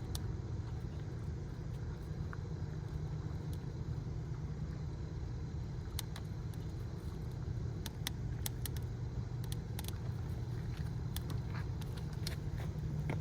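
Steady low rumble of road traffic on the bridge, with scattered light clicks in the second half.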